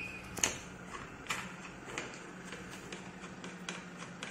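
Sharp clicks and knocks of a gas hose fitting being handled and pushed into the driving-gas inlet of an anesthesia ventilator, the loudest about half a second in. A low steady hum runs underneath.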